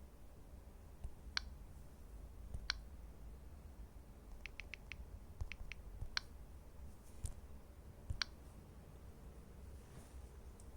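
Scattered light clicks over a faint low hum. Single clicks come a second or more apart, with a quick run of four near the middle followed by three more.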